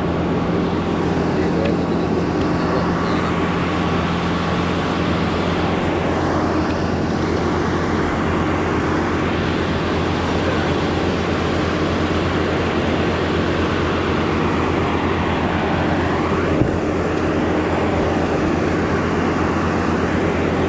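A steady engine drone that holds one pitch throughout, with a single short knock about sixteen and a half seconds in.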